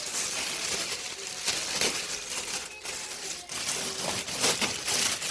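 Plastic packaging rustling and crinkling as it is handled, with irregular small knocks and light clinks.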